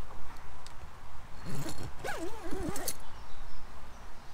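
An animal's wavering call, about a second and a half long, starting about a second and a half in, with a few faint clicks of handling.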